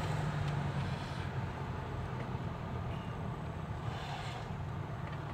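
Steady drone of a vehicle's engine and tyres, heard from inside the cabin while driving.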